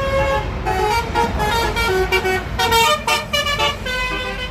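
A bus's 'telolet basuri' musical horn playing a tune of short pitched notes that step up and down, over the low rumble of passing traffic.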